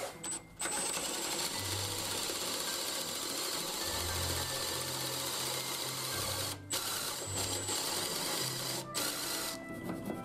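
Cordless drill with a Forstner-type bit boring a hole into a wooden door frame, the motor running under load. It pauses briefly twice, about two-thirds of the way through and again near the end.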